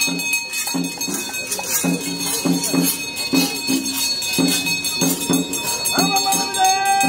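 Traditional ritual music: drums beaten in a steady, fast rhythm under a constant jingling of bells. About six seconds in, a held, slightly wavering melodic note comes in over the drums.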